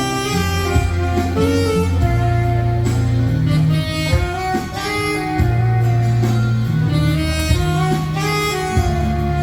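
Saxophone playing a slow melody in long held notes over a backing track with a steady bass line.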